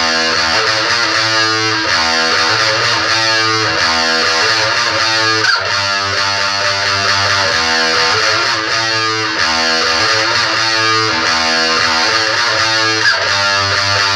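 Distorted electric guitar playing held chords in a repeating pattern, the chord changing every second or two.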